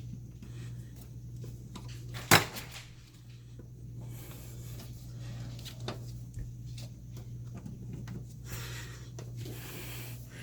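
Kitchen handling sounds: faint clicks and rustles with one sharp knock a little over two seconds in, over a steady low hum.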